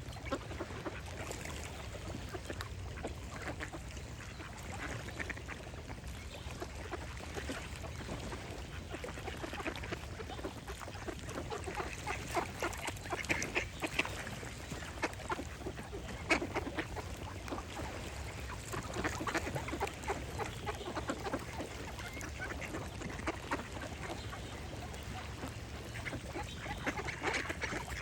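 Ducks quacking at irregular intervals, the calls clustering in short runs, over a steady low background hum.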